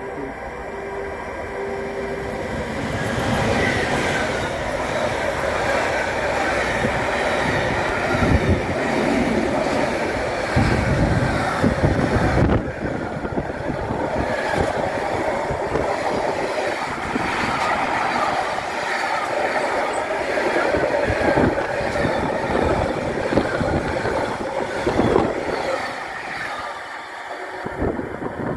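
Electric-hauled freight train of wagons carrying lorry semitrailers passing close at speed: a loud, steady rolling noise of steel wheels on rails, with scattered knocks. It builds over the first few seconds and falls away near the end as the last wagons move off.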